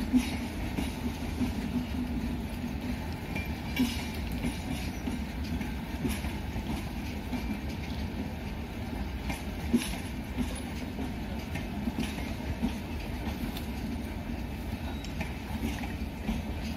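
Train rolling along the tracks with a steady low rumble, and a few sharp clanks of wheels and couplings scattered through it.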